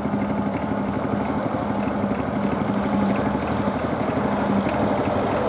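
Vintage Fordson tractor engine running steadily with an even, pulsing chug as it pulls a spring-tine cultivator.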